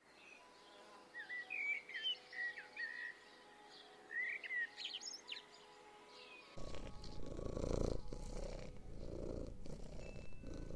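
A small songbird chirping and giving short whistled calls. About six and a half seconds in, this gives way to a cat purring steadily, in a pulsing rhythm.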